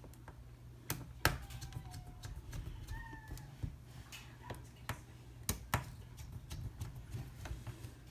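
Scattered light clicks and taps of a screwdriver and small screws being started in a laptop's plastic bottom cover, over a low steady hum.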